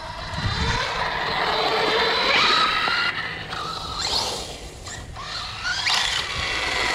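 Arrma Outcast 6S brushless RC truck driving in bursts, its motor and drivetrain whining and rising in pitch each time it accelerates, over a rough scraping noise. The drivetrain sounds crunchy, which the owner takes for a worn center differential.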